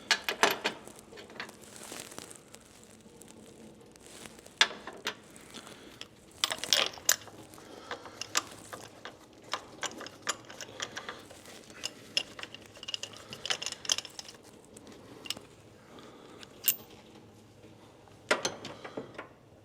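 Ratchet and socket clicking and metal tools clinking in irregular clusters of short clicks as a spark plug is worked out of the engine.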